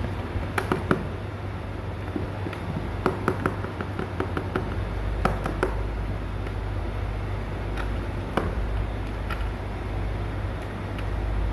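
A kitten's paws and claws tapping and scratching on a hard plastic stool: scattered light clicks and knocks, a quick cluster of them a few seconds in, over a steady low background hum.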